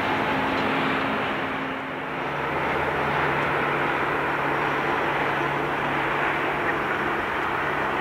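Jet airliner engines running steadily, a constant rushing noise with a low hum beneath it. About two seconds in it dips briefly, then a steady low tone holds as an Airbus A320 taxis.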